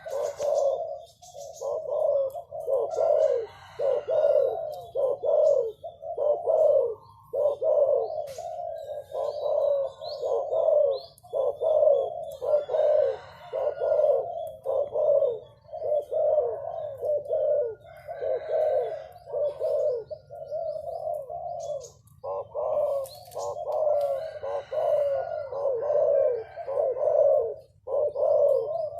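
Pigeons cooing, one coo after another with hardly a break, the calls overlapping, over a faint low steady hum.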